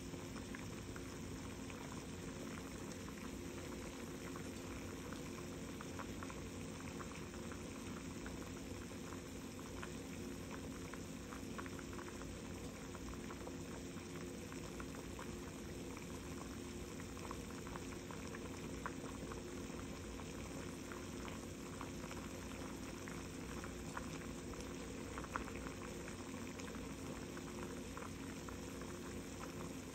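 Pot of snow crab legs boiling in a buttery beer broth on an electric stovetop: a steady bubbling with many small pops.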